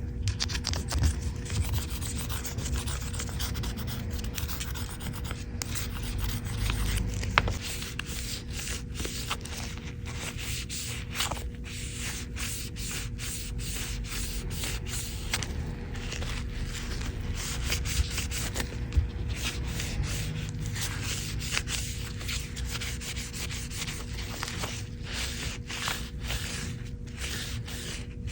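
Plastic razor blade scraping caked grime and oil off an iPhone's body, in many short repeated strokes.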